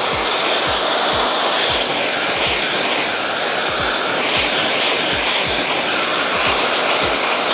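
Handheld hair dryer running steadily and loudly as it blows wet hair dry, with irregular low buffeting thumps.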